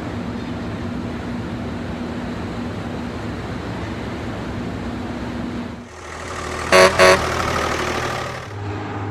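Steady machinery rumble with a faint hum inside a steel mill. About seven seconds in, a vehicle horn gives two quick toots, and the rumble carries on.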